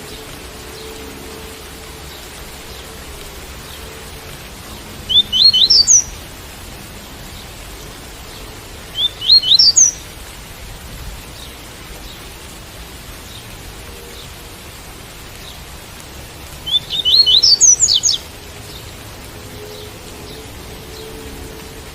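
Double-collared seedeater (coleiro) singing its 'tui-tui' song: three short phrases of quick, rising whistled notes, about five, nine and seventeen seconds in, over a steady hiss of rain.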